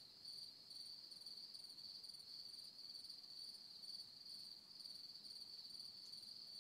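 Faint, steady chirping of crickets, a high trill in quick, even pulses.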